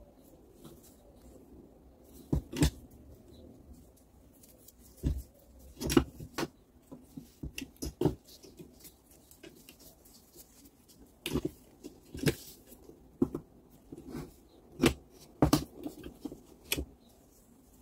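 Irregular sharp clicks and knocks of parts being handled and set down on a workbench, about a dozen hits spread unevenly, the loudest near the middle and towards the end.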